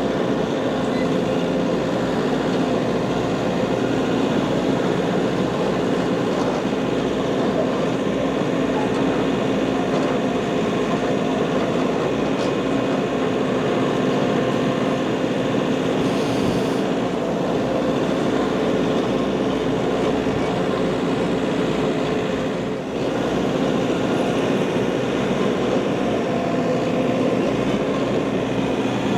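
Tractor engine running steadily under working load, a constant mechanical drone with one brief dip about three quarters of the way through.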